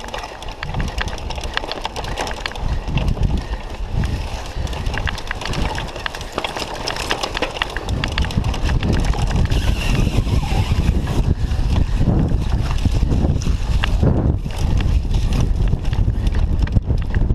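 Cyclocross bike ridden fast over rough, bumpy grass: a steady clatter of rattles and knocks from the bike, with wind buffeting the microphone as a low rumble that grows louder from about eight seconds in.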